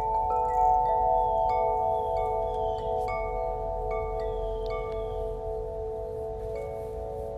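Chimes ringing: several overlapping metallic tones that hang on, with new notes struck every half second to second. Faint short falling chirps sound high above them.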